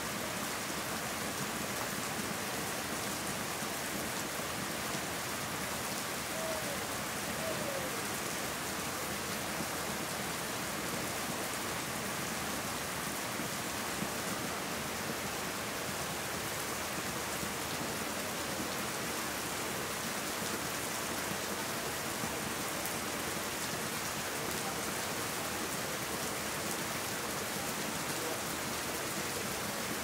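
Steady rain falling on leafy garden plants: an even, unbroken hiss of drops.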